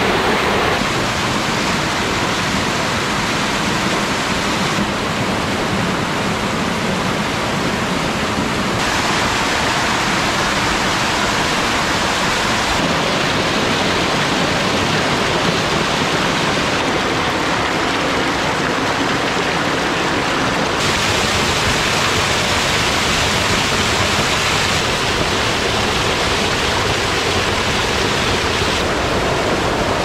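Mountain stream water rushing and cascading over rocks, a loud, steady splashing rush whose tone shifts a little every four seconds or so.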